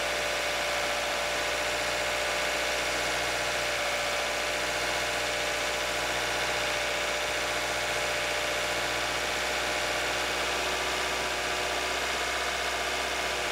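Mazda Roadster NB6C's 1.6-litre four-cylinder engine idling steadily while its cooling system is bled of air through the radiator filler.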